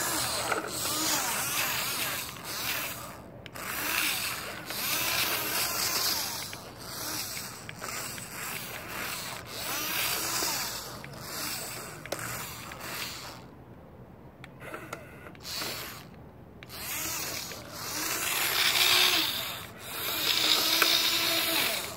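Geared electric drive motor of a toy RC flatbed tow truck whining as it drives, with plastic tyres rolling on gritty asphalt. The whine rises and falls with the throttle and drops away for a couple of seconds in the middle.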